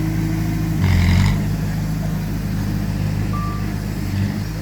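Diesel engines of heavy earthmoving machinery running steadily, with a short surge about a second in. A reversing alarm gives one short beep near the end.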